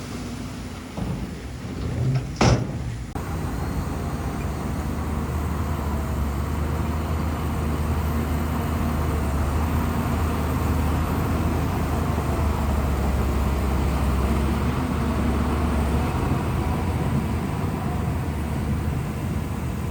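Diesel engine of a Shantui bulldozer running steadily with a low drone, and a single sharp knock about two and a half seconds in.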